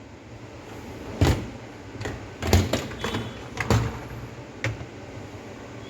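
Parts of a dishwasher being handled by hand: a series of about six sharp clicks and knocks spread over a few seconds.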